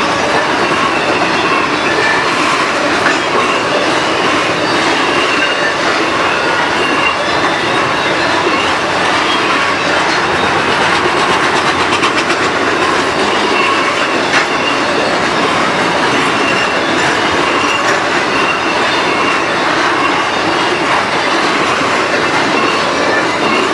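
Double-stack intermodal freight cars rolling past: a steady noise of steel wheels on rail, with occasional clicks over the rail joints and thin, high wheel-squeal tones.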